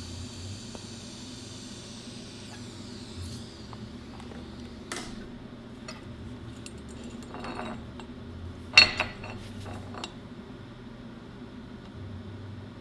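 Hard metal parts and tools being handled and set down on a workbench: scattered clicks and knocks, with one sharp clink about nine seconds in and a few quick ones after it, over a steady low hum. Near the start a hiss fades out with a falling sweep.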